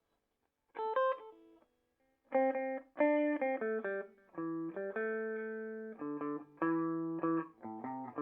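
Electric guitar played clean through a Peavey Bandit 112 combo amp (TransTube circuitry, 12-inch Blue Marvel speaker), on its clean channel in modern voicing through the high-gain input. A couple of picked notes come about a second in, then from about two seconds in a steady run of picked notes, some short and some held.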